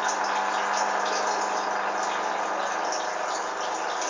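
Hoover Dynamic washing machine's drain pump running steadily, a low hum under rushing, gurgling water.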